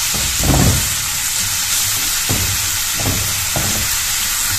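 Chopped onion and garlic sizzling in oil in a nonstick frying pan, with a few short knocks and scrapes as they are stirred with a spatula; the first knock, about half a second in, is the loudest, and three more come in the second half.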